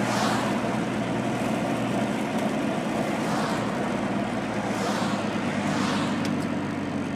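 Steady road and engine noise heard inside a moving car's cabin, a low even hum under a noisy hiss. A few brief hissy swells rise above it.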